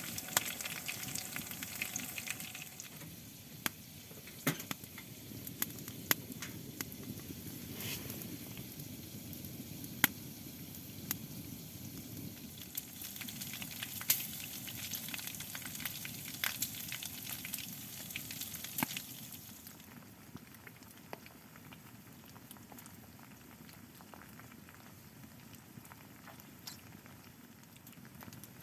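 Meat frying and sizzling on a hot stove, with scattered sharp pops through the hiss; the sizzle grows fainter about two-thirds of the way through.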